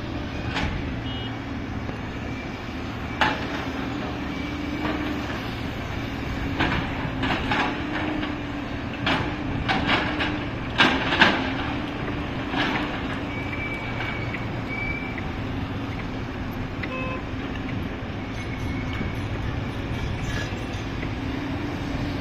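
Diesel engine of a JCB earthmoving machine running steadily under load, with a string of sharp knocks and clanks from its working gear in the middle of the stretch, loudest about halfway through.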